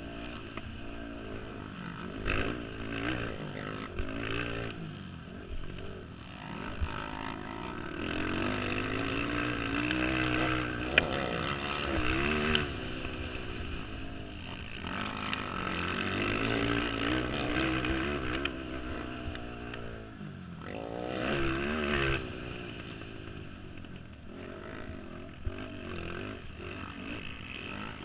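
Racing ATV quad engines revving up and down through the gears, several machines at once, swelling as they come close, loudest near the middle and again about three quarters through. A single sharp click sounds near the middle.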